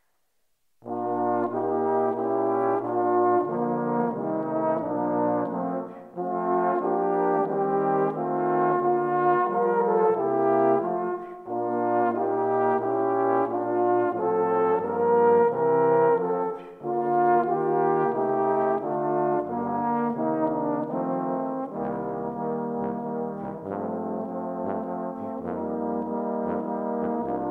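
Four-part trombone ensemble, every part overdubbed by one player on tenor, tenor-bass and bass trombones, playing a brisk piece in close harmony over a bass line. It comes in about a second in after silence, with brief breaks around six and seventeen seconds in, and in the last few seconds the low part turns to short, detached notes.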